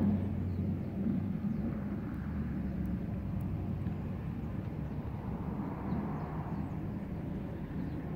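Steady low outdoor rumble with a faint continuous hum underneath, with no distinct events.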